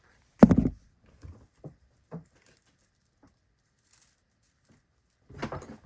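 Handling of wires and small parts: a loud thump about half a second in, then a few soft clicks and taps.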